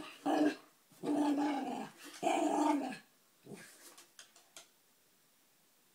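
Poodle puppy growling and grumbling at a pig ear treat in drawn-out, voice-like 'talking' sounds, four of them in the first three seconds. A few faint ticks follow.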